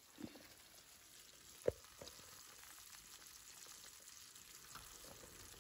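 Chicken and capsicum sizzling faintly in a frying pan, with a single sharp knock about a second and a half in.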